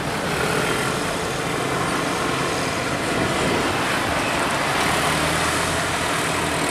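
Road traffic passing: engines and tyre noise from cars, a motorcycle and a tour bus, with a deeper engine hum building in the second half.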